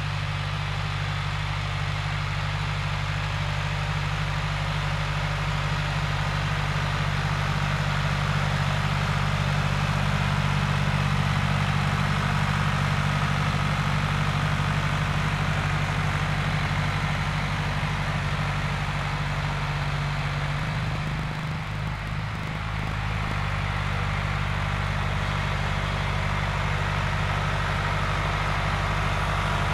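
Tractor engine running steadily under load while pulling a Krone skim plough through stubble. The engine note dips and wavers briefly about two-thirds of the way through, then settles again.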